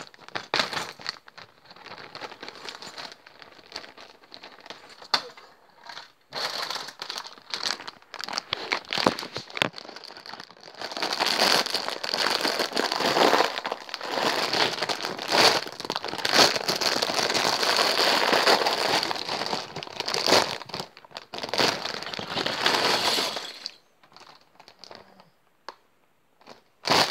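Plastic packaging and bags of Lego pieces crinkling and rustling as they are handled, with many sharp irregular clicks. The crinkling is densest and loudest through the middle and thins out near the end.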